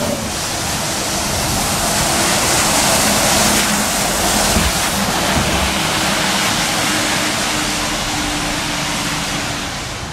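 A city bus driving past close by on a wet road, its tyres hissing on the wet asphalt. The hiss builds to a peak about halfway and then eases off, with a faint steady hum underneath in the second half.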